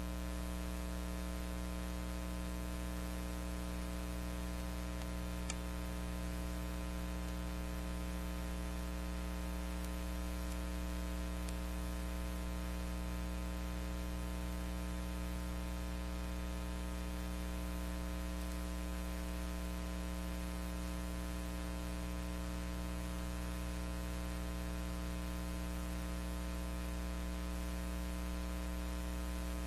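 Steady electrical mains hum with hiss. This is the noise of the transfer of a silent film, which carries no recorded sound of its own. There is one faint click about five and a half seconds in.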